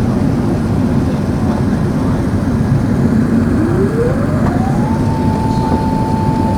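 Steady rumble of an Airbus A380 cabin in descent. About halfway through, a whine rises in pitch and then holds steady: the flap drive running as the flaps extend for landing.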